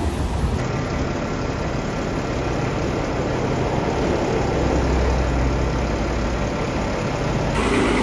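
Double-decker bus engine running with road traffic noise: a steady low engine drone that grows stronger about halfway through as a bus approaches.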